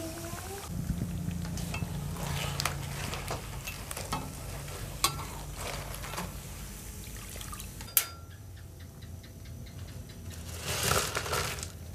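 Peyek kacang (peanut crackers) frying in hot oil in a wok, sizzling, while a spatula and a wire spider strainer knock against the pan now and then. One sharp clack comes about eight seconds in.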